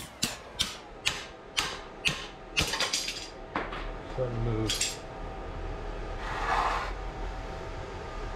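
Hammer blows striking steel locking pliers clamped on a leaf-spring shackle bolt held in a bench vise. There are about eight sharp metal-on-metal strikes, roughly two a second, stopping about three and a half seconds in. The blows are breaking an old bushing collar off the bolt.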